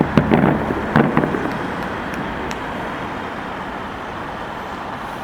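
Steady outdoor traffic and street noise, with a cluster of sharp cracks in the first second and a half.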